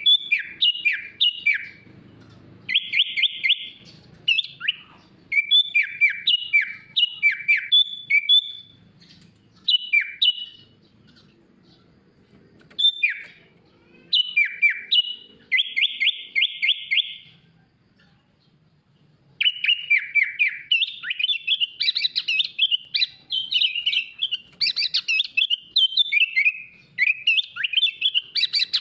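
Sooty-headed bulbul (kutilang) singing a varied song: phrases of quick down-slurred whistles, two fast trills, pauses of a second or two, then a denser run of mixed notes over the last third. This is a kutilang song filled with phrases taken from other birds (isian).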